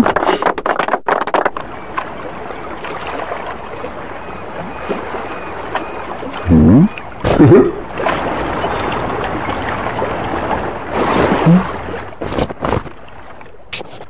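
Cartoon sea-water sound effects: a steady wash of waves, broken by two short loud sounds with sliding pitch about halfway through and another a few seconds later, with a few sharp clicks near the end.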